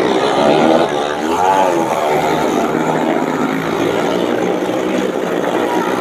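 Motorcycle engine running as the bike circles the wooden wall of a well-of-death drum. Its pitch rises and falls in the first couple of seconds, then holds steadier.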